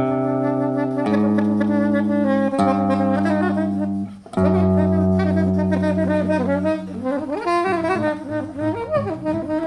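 Soprano saxophone and guitar improvising together in free, experimental style: long held tones that shift every second or two, a brief drop about four seconds in, then a flurry of fast, wavering notes from about seven seconds.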